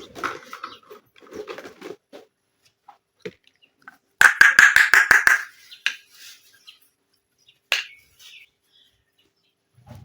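Small plastic toy kitchen pieces being handled and set down. About four seconds in comes a louder burst of about eight rapid clicks, followed by a few single ticks.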